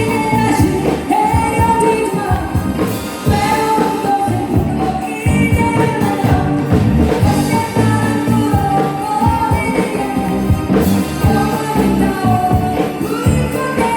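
A live band performing a song: a lead vocal melody sung in held, wavering phrases over drums and bass.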